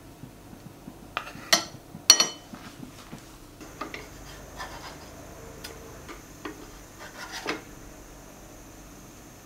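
Small objects being handled: a series of clinks and knocks, the two loudest about 1.5 and 2 seconds in, then several lighter taps and a short scrape before it settles near the end.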